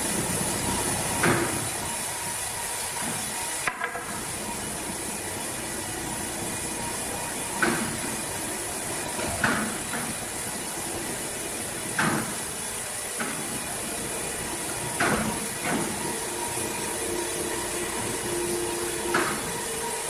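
Overhead crane hoisting a large log on wire-rope slings: a steady mechanical hum with sharp metallic clanks every few seconds.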